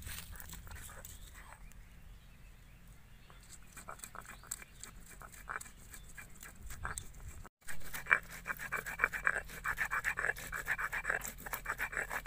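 Stone roller grinding ginger, garlic and green chillies into a paste on a flat stone slab (sil-nora): rhythmic scraping and crunching. The strokes are soft and sparse at first, then come louder and faster after a momentary dropout about seven and a half seconds in.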